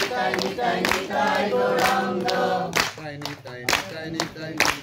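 A group of devotees chanting a kirtan together in chorus. From about three seconds in, sharp claps come about once a second.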